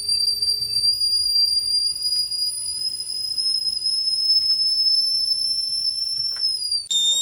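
Primula Stewart stainless steel stovetop tea kettle whistling at the boil, the sign that the water is ready. It gives one loud, steady high whistle that creeps slowly up in pitch, then drops suddenly to a lower note near the end.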